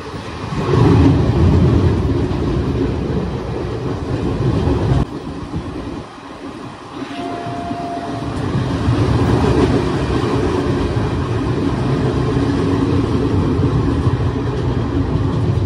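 Garib Rath Express passenger train running at speed, heard from an open coach doorway: a loud steady rumble of wheels on track mixed with wind rushing over the microphone. It dips briefly about five seconds in, and a short steady tone sounds for about a second just after.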